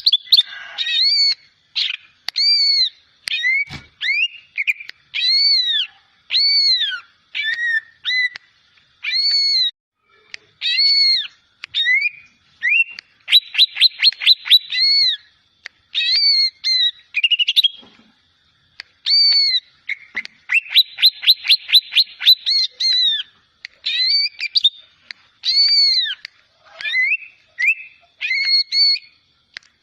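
A young green leafbird (cucak ijo) practising its song: a string of clear, arched whistled notes broken by two fast trills of about seven notes a second, one in the middle and one later on.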